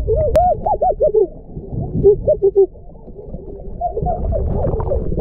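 Muffled underwater sound from a submerged action camera: water moving around the housing gives a low rumble, with a quick run of short warbling rise-and-fall tones in the first couple of seconds.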